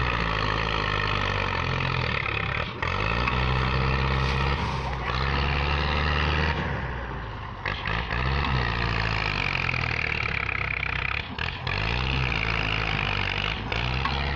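Belarus tractor's diesel engine working hard under heavy load as it tries to pull a trolley piled high with sugarcane. Its pitch sags and recovers several times, a sign of the engine straining and bogging down against a load it fails to move.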